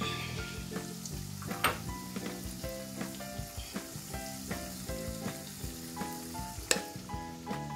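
Onion pakoras sizzling as they deep-fry in oil, under light background music. Two sharp metal clinks, about two seconds in and near the end.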